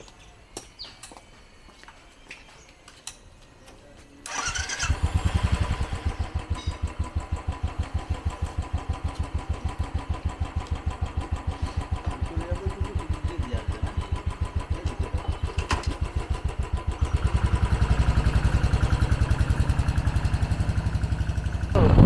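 Royal Enfield motorcycle engine starting about four seconds in, catching at once, then idling with an even pulsing beat. It runs louder near the end.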